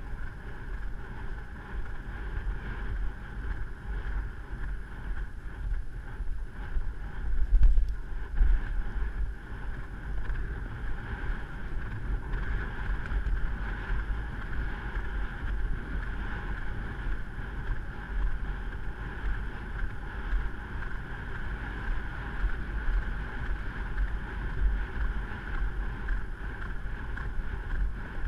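Wind buffeting the microphone: a steady low rumble with noise over it, and a louder gust about eight seconds in.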